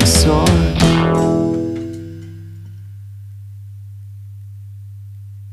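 A rock band's song ends: two last hits of guitars, bass and drums with a cymbal crash, ringing out and fading over about two seconds. A steady low hum is left sounding after it.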